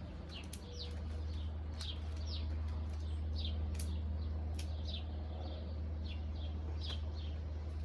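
A small bird chirping over and over, short high chirps that each slide down in pitch, over a steady low hum.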